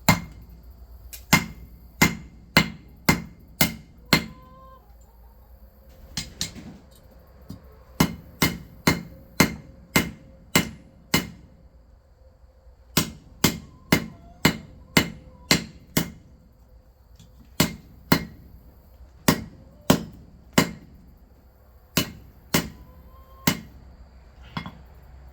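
A hand hammer striking a small cold nail or rivet on a steel anvil: cold forging. The blows come in runs of several, about two a second, with short pauses between runs.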